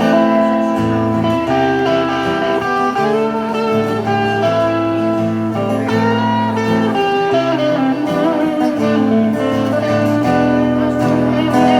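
Instrumental break of a song: guitar playing a melody over steady bass notes, with some notes bending and sliding in pitch.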